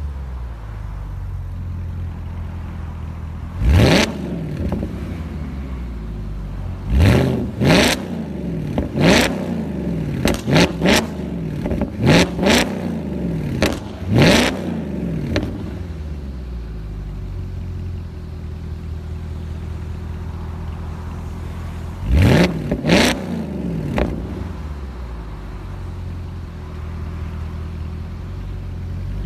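2008 Audi S5 (B8) 4.2-litre V8 through an Armytrix valved cat-back exhaust, idling and then blipped in short sharp revs. Each blip climbs quickly and drops back to idle: about a dozen in quick succession from about four seconds in, and three more around twenty-two seconds.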